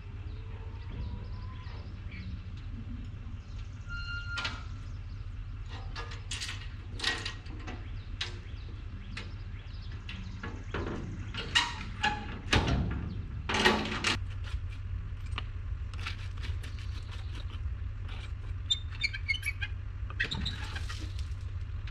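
A machine engine running steadily with a low hum, with scattered knocks and scrapes, loudest about halfway through, and a few short bird chirps.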